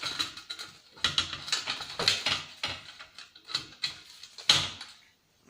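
Irregular clicking and rattling of plastic and metal parts from a CRT TV/DVD combo being handled and pulled apart, with one sharper, louder click about four and a half seconds in.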